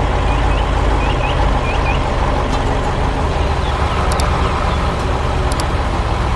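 Heavy truck engine running steadily at a low pitch, with a few short high chirps in the first two seconds.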